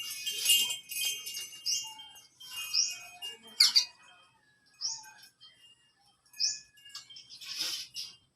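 A bird giving short, high, rising chirps, one every second or two, with a couple of louder harsh calls or flutters between them. A bright, ringing, jingly burst comes in the first second.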